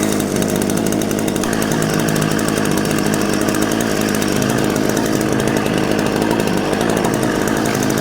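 Sterwins PCS2 chainsaw engine running steadily.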